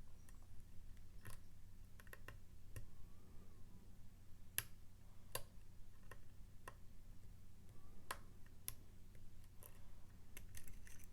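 Small, irregular metallic clicks and taps of a dimple pick working the pins of a Mul-T-Lock MT5+ cylinder under tension, with a few sharper clicks in the middle.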